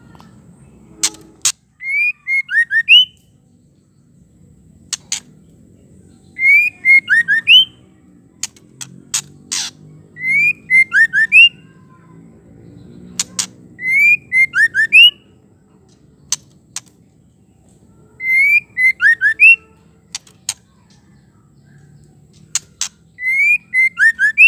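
Female white-rumped shama calling: the same short phrase repeated six times, each time a few sharp clicks followed by a quick run of rising and falling whistled notes.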